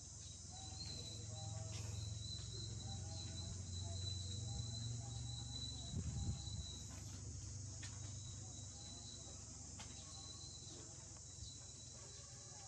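Insects chirring in a steady, high, even drone, with a low rumble underneath.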